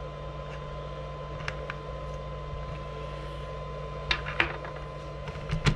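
Steady low electrical hum with a faint high whine, broken by a few light clicks and knocks of small parts being handled while a wheel is taken off a radio-controlled truck, the sharpest ones about four seconds in and near the end.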